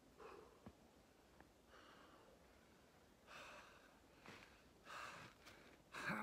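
A man's breaths, quiet puffs about one every second and a half.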